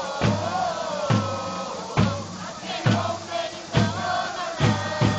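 Football supporters singing a chant together in unison, with a big drum beating steadily a little more than once a second.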